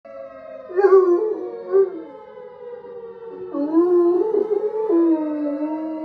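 Tornado siren played through a phone speaker as a steady wail, with a bloodhound-coonhound mix howling along. Two short wavering howls come about a second in, then a longer howl from about three and a half seconds that settles into a held note.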